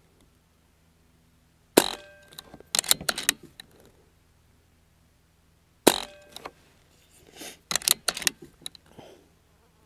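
Two shots from a BARRA 1100Z .22 PCP air rifle, about four seconds apart, each a sharp crack with a brief metallic ring. Each shot is followed about a second later by a quick run of metallic clicks as the action is cycled for the next pellet.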